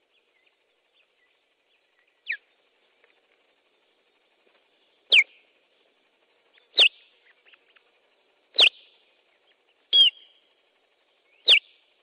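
Osprey alarm calling at the nest: six sharp, short, downward-sliding whistled calls, one every second and a half to two seconds, the first quieter than the rest. It is the adult's alarm at an intruder near the nest.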